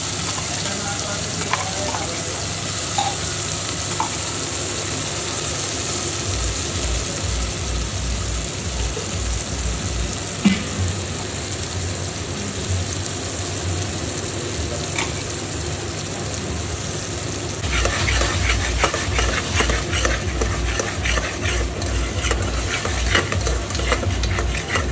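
Oil sizzling and frying in a pressure-cooker pot as spices and then a masala paste are fried for a mutton curry. From about three-quarters of the way through, a spoon stirs and scrapes against the metal pot in a quick regular rhythm, over the sizzle.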